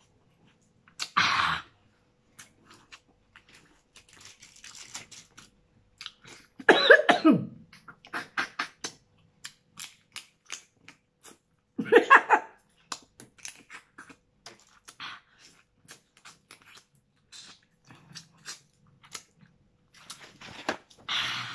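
A person eating spicy crab and lobster by hand: close, wet chewing, sucking and smacking clicks, broken four times by loud coughing vocal outbursts, one of them sliding down in pitch. The outbursts are reactions to the chili heat.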